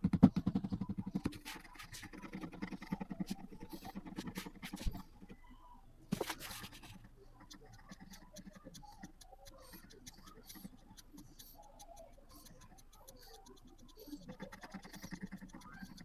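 Pencil scratching across paper in quick, repeated strokes. It comes in runs at the start, through the next few seconds and near the end, with one longer, louder stroke about six seconds in.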